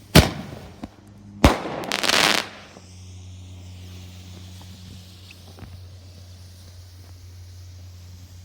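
Firework bangs: a sharp report, a second one about a second later, then a half-second burst of hiss.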